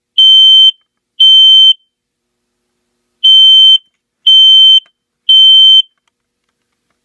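Smoke alarm sounding during a test: loud half-second beeps at one steady high pitch in the three-beep evacuation pattern. The last two beeps of one group are followed by a pause of about a second and a half, then a full group of three.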